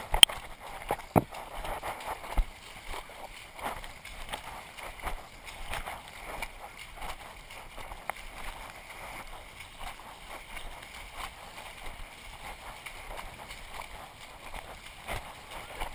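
Water sloshing and splashing as a runner wades through a shallow stream, with a few sharp knocks in the first couple of seconds.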